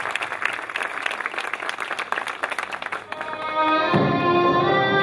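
Audience applauding after a recited poem; about three seconds in, instrumental music with long held notes starts and grows louder.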